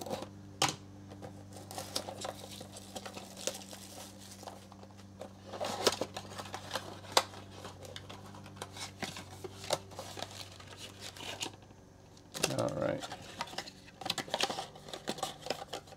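Plastic wrap being torn and peeled off a cardboard trading-card blaster box: irregular crinkling and sharp clicks and rustles, busiest around the middle and again near the end as the box's cardboard flap is opened.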